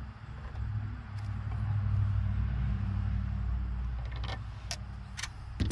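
Low hum of a distant vehicle engine that swells and then fades, with a few sharp metal clicks near the end from hand tools on the boat engine's carburetor.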